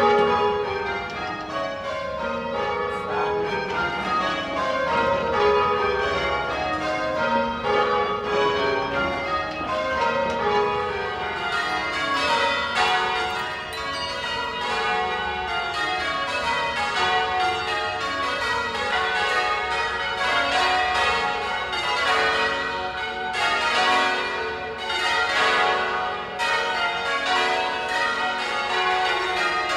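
A ring of church tower bells being rung full-circle on ropes in change ringing. The bells strike one after another down the scale, and the descending run repeats over and over.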